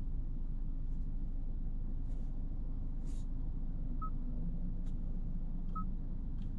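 Steady low rumble of engine and road noise inside the cabin of a Kia K8 with the 2.5-litre four-cylinder petrol engine, driving in town. Two short faint beeps sound about four seconds in and again near the end, with a few faint clicks.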